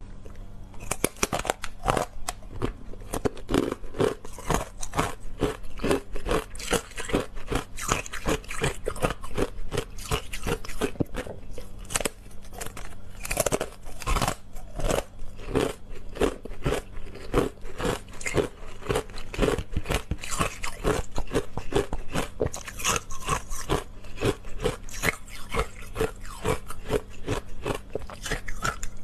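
Close-up crunching and chewing of a frozen matcha green tea ice bar: a rapid, continuous stream of crisp cracks as the ice is bitten and crushed between the teeth.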